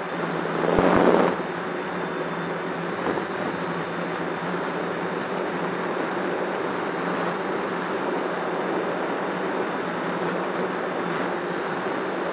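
DJI F550 hexacopter's six electric motors and propellers buzzing steadily in flight, heard close up from the onboard camera. A brief, louder rush of noise comes about a second in, then the steady buzz carries on.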